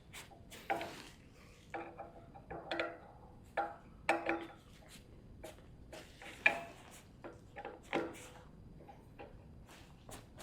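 Irregular small metallic clicks and clinks, some ringing briefly, as screws are tightened down while reassembling an air compressor pressure regulator.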